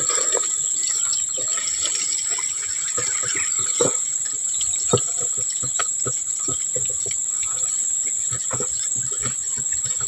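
A steady, high-pitched insect drone runs throughout. Over it come irregular short clicks, knocks and rustles as a long wooden pole with a plastic basin at its tip is pushed through tree branches and leaves, working the basin up against a weaver-ant nest to harvest kroto.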